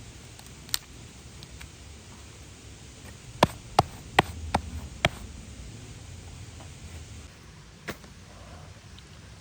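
Sharp knocks or clicks: a single one early, then five in quick succession in the middle, about three a second, and one more near the end, over a faint low rumble.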